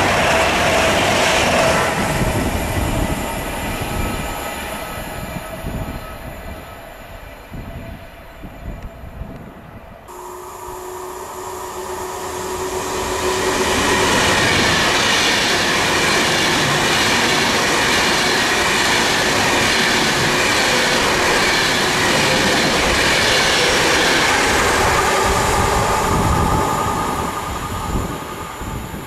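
Trains passing on a mainline railway: one train's sound fades away, then after a sudden change a second train approaches with a steady whine, passes at speed loudly for about twelve seconds and fades away near the end.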